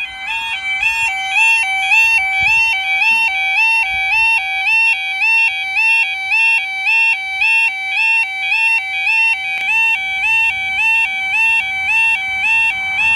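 UK level crossing yodel alarm sounding loudly, a two-tone warble stepping between a lower and a higher pitch about one and a half times a second. The barrier is down and it is warning of an approaching train.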